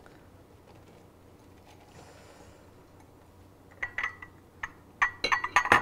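Quick clinks and knocks of a glass bowl against a stainless steel pot as sliced mushrooms are tipped in. They start about four seconds in, after a quiet start.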